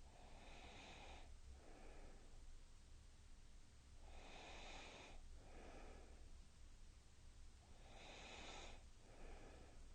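Faint, slow, regular breathing: three breaths about four seconds apart, each a longer hissing breath followed by a shorter one.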